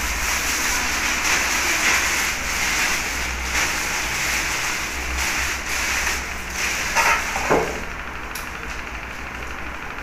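Tap water running and splashing over hands during handwashing. It stops about eight seconds in, just after a brief squeak.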